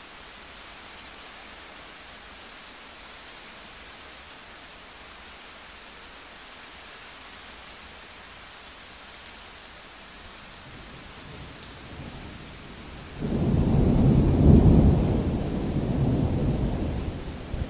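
Steady rain hiss with a couple of faint drip ticks, then a rumble of thunder that swells about two-thirds of the way through. It turns loud and deep for a few seconds and rolls on until near the end.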